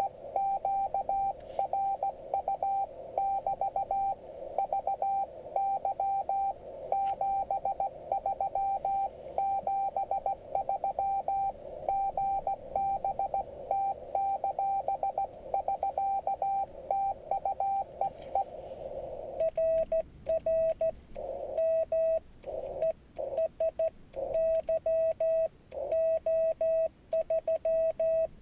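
Morse code tones from a Yaesu FT-817D ham transceiver: a received station's dots and dashes over a band of hiss, heard through its narrow CW filter. About two-thirds of the way through, this changes to a cleaner, slightly lower keyed tone, the rig's sidetone as the operator sends his reply with a paddle.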